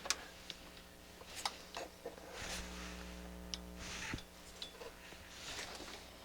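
Faint, scattered small clicks and taps of hands and tools being handled on a workbench, with a couple of soft rustling swells, over a low steady hum.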